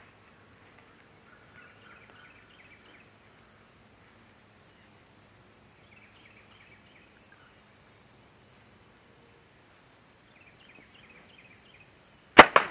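Faint scattered bird chirps, then near the end a compound bow shot: two loud sharp cracks about a fifth of a second apart.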